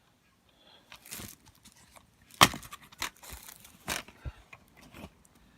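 Plastic DVD case and disc being handled: a sharp click about two and a half seconds in, with scattered softer clicks and rustles around it.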